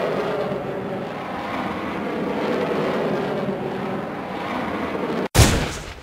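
Bullet-time sound effects: a long, steady rushing noise cuts off abruptly a little past five seconds in. A sudden loud gunshot-like blast follows at once and fades away.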